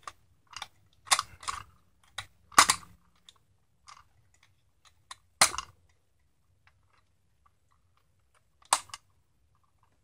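Pliers gripping and twisting a bolt out of a seatbelt retractor: a string of separate sharp clicks and knocks of tool on bolt and housing, two of them louder a little past two and a half and five seconds in, then one more near the end.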